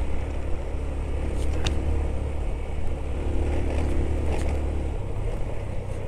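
Motorcycle engine running at low speed over a rough off-road track: a steady low rumble, with a couple of sharp clicks and rattles about two seconds and four and a half seconds in.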